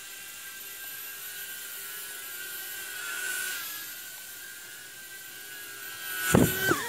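Small toy quadcopter drone's electric motors and propellers whining steadily in flight, the pitch wavering briefly a few seconds in. Near the end a few loud knocks as the drone hits the camera.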